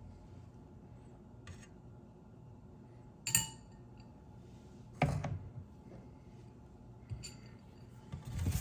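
A few scattered metal clinks and knocks of hand tools and bike parts being handled. There is a ringing clink about three seconds in, a duller knock about two seconds later, and lighter ticks around them.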